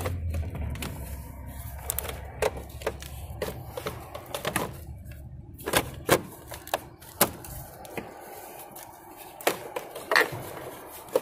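Hard plastic engine-bay covers being handled and pressed into place over the car battery, a string of sharp plastic clicks and knocks. A low hum fades out about eight seconds in.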